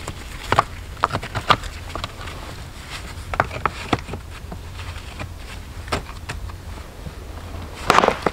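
Irregular sharp knocks and clicks, about a dozen, with a quick cluster of several near the end, over a steady low rumble.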